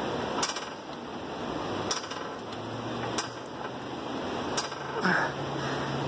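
Heavy-duty hydraulic floor jack being pumped to lift a car: a sharp metallic click with each stroke of the handle, about one every second and a half.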